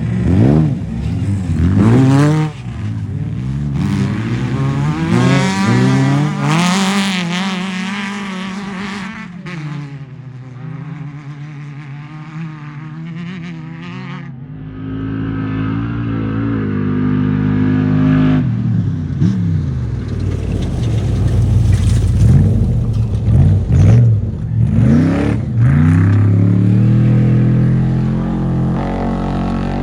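Off-road desert race vehicles accelerating and passing one after another, engines revving, their pitch rising and falling as each goes by, with a lull in the middle.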